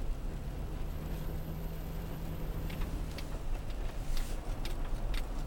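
Inside a vehicle driving on a snow-covered road: a steady low rumble of engine and tyres, with a steady hum that stops about three and a half seconds in. A run of short, sharp clicks starts about halfway through.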